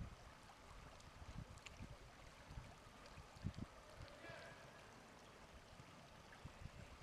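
Faint flowing river water, a steady low rush, with occasional low thuds.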